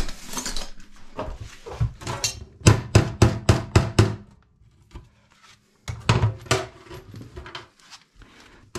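Sharp knocks: a quick run of about eight hits in under two seconds, then a few more a couple of seconds later.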